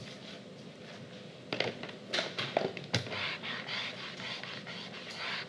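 A few light knocks, then a whiteboard eraser rubbing back and forth across a whiteboard in a steady scrubbing.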